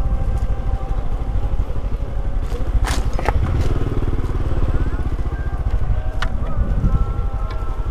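Motorcycle engine running steadily with a rapid low pulsing, and a few sharp knocks or rattles: two about three seconds in and one near six seconds.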